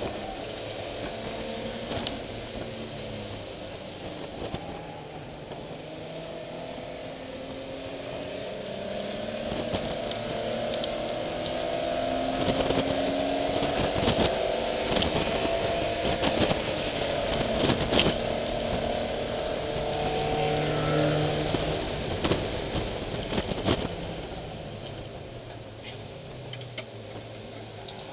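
BMW E30 325is's M20 straight-six at racing speed, heard on board. The engine note climbs and drops repeatedly through gear changes, louder through the middle stretch, with scattered sharp knocks and rattles.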